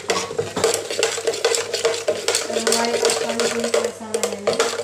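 A metal spoon stirring water in a stainless steel mug, clinking and scraping rapidly and continuously against the inside of the mug as spices are mixed in.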